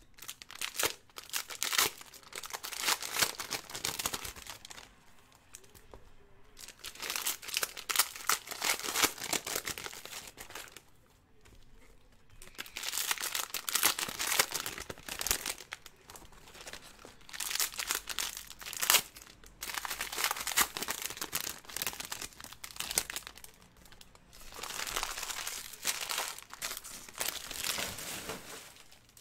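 Foil trading-card pack wrappers crinkling and tearing as the packs are handled and ripped open, in about five stretches of a few seconds each with short pauses between.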